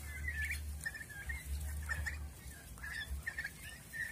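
Young turkeys peeping as they forage, a scatter of short high chirps repeated several times a second, over a low rumble.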